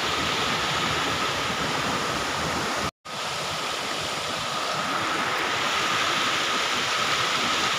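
Shallow river running over rocks in small rapids: a steady rush of water. It cuts out for a split second about three seconds in, then goes on.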